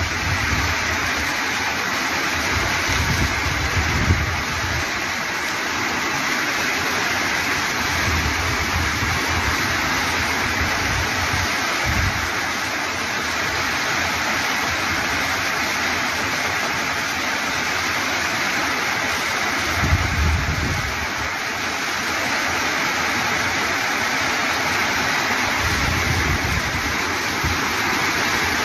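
Torrential rain pouring down in a steady, dense hiss, with low rumbles coming and going every few seconds.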